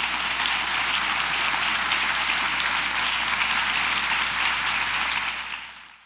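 Audience applauding, a steady dense clatter of many hands clapping that tails off near the end.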